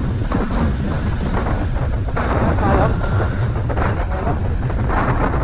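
Steady low wind rumble buffeting the rider's camera microphone while riding an electric motorcycle through traffic, with road and traffic noise underneath.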